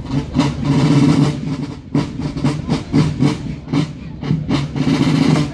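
Marching band's side drums playing a rapid drum cadence, with a steady low drone underneath.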